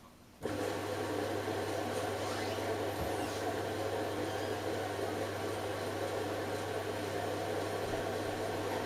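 Hoover H-Wash 500 washing machine starting up about half a second in, then running with a steady electric hum and an even whoosh.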